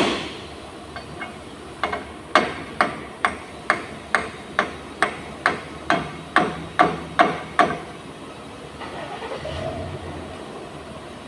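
Hammer striking metal: a steady run of about fourteen sharp, ringing blows, roughly two a second, which then stops.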